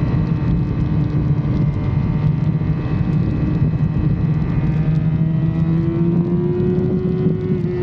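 Yamaha R6 (2006) 600 cc inline-four engine running steadily under way, with its pitch rising slightly near the end before easing off, over a steady rush of noise.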